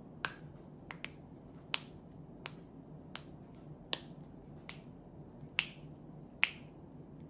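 Fingers snapping about ten times at a slow, fairly even pace, the last snaps the loudest.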